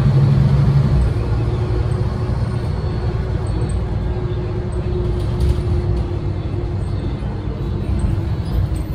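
Renault PR100.3 bus's 9.8-litre turbocharged six-cylinder diesel running as the bus drives, heard from inside the passenger cabin. Its low drone eases and drops in level about a second in, then the engine runs on steadily.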